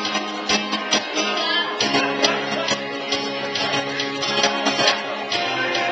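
Music led by a plucked and strummed guitar, with a steady run of note attacks.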